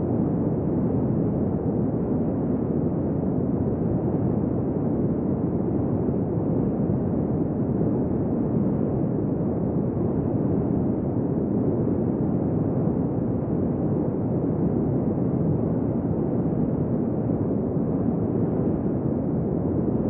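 Desert wind blowing steadily: an even, deep rush of noise that holds its level without distinct gusts or whistling.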